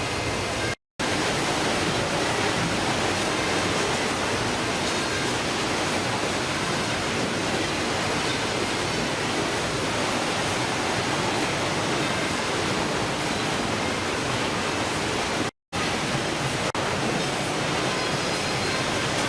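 Steady, even rushing noise with no pitch or rhythm, cutting out to silence for a moment twice: about a second in and about three-quarters of the way through.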